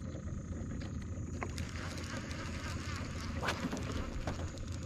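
Steady low wind rumble on the microphone, with a few faint clicks and one brief swish about three and a half seconds in as a baitcasting rod is cast.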